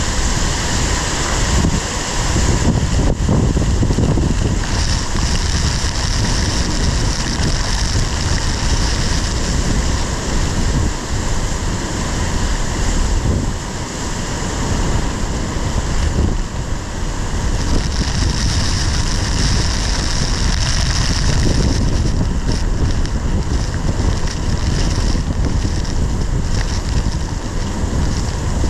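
Storm of heavy wind-driven rain pelting the car's windshield and body, heard from inside the car, with strong wind buffeting. It is a loud, steady roar that swells and eases a little in gusts.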